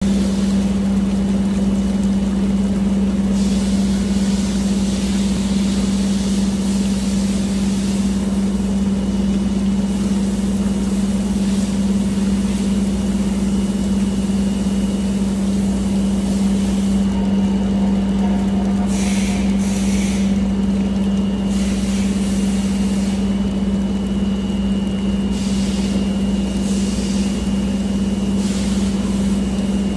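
Machinery running with a steady, loud hum on one constant low tone, over a noisy background and a faint high whine.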